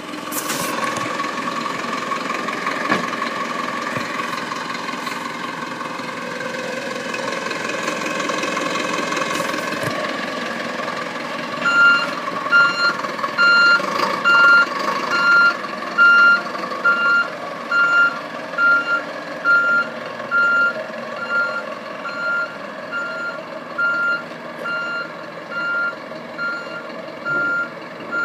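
Mitsubishi Fuso box truck's engine idling. After about twelve seconds a backup alarm starts beeping steadily, roughly one beep every 0.8 seconds.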